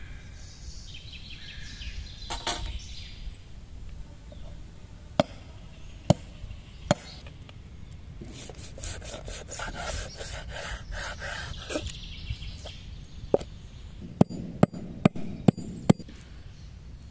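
Knife work on raw lamb on a wooden cutting board: a few sharp knocks of the blade on the board, a stretch of scraping and slicing as the knife cuts meat along the bone, then five quick chops into a lamb bone on the board near the end.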